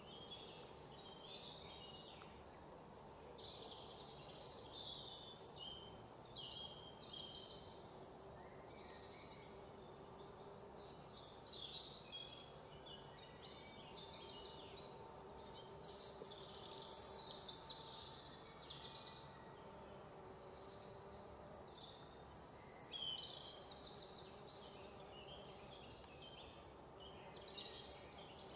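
Faint pond-side ambience: small birds chirping in short, quick high trills, over and over, above a steady low hiss.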